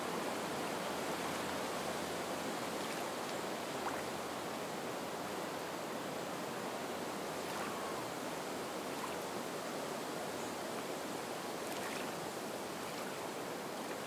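Soft wind over the marsh reeds and water lapping the shore, an even, steady rush.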